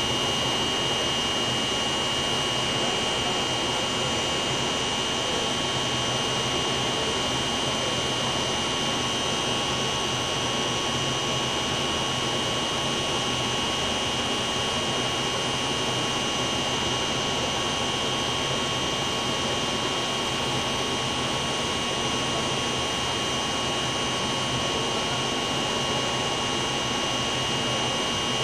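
Steady, loud machinery noise with a constant high-pitched whine on top, unchanging throughout.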